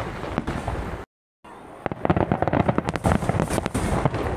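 Aerial fireworks shells bursting in a large display, with bangs and crackling. The sound cuts out completely for a moment about a second in, then comes back as a dense, rapid run of bangs and crackles.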